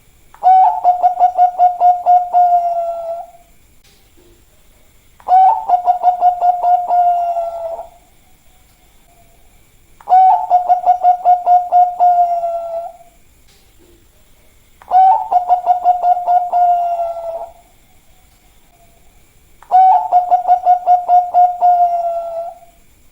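Bangkok-strain zebra dove (perkutut) singing its cooing song five times, about every five seconds. Each phrase is a fast stutter of notes that runs into a long drawn-out coo.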